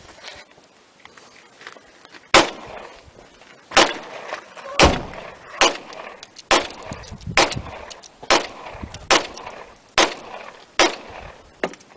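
A rapid string of about eleven gunshots, roughly one every second, each a sharp crack.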